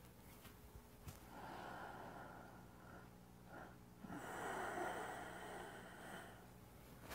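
A man breathing slowly and deeply in paced qigong breathing, close to the microphone: one breath about a second in, then a longer, louder breath about four seconds in. A faint steady hum runs underneath.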